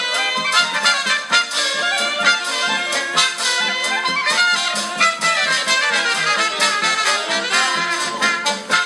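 Upbeat swing-jazz background music led by brass horns, with a steady beat.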